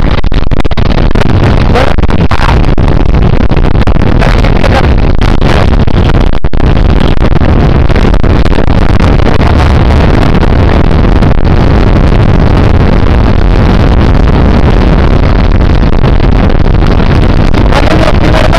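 Motorcycle riding at speed, heard from on the bike: a loud, steady rush of engine and wind noise that does not let up.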